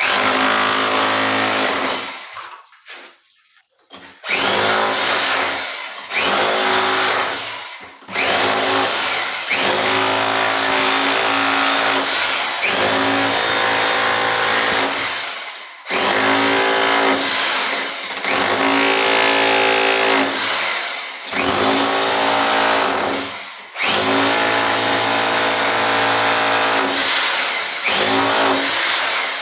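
A 1500 W electric rotary hammer with a chisel bit, run in a series of long bursts, about eight, switched off briefly between them. Each burst starts with a rising whine as the motor spins up, then runs steadily.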